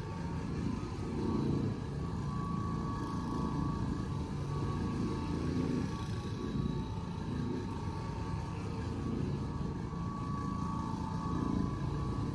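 Orbital floor machine running on carpet: a steady motor hum over a low rumble, swelling a little as it is worked back and forth.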